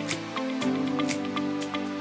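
Background music: held chords that change about half a second in, over a light, steady ticking beat.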